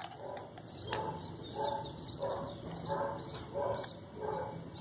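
A dog barking over and over, about one and a half barks a second, with birds chirping.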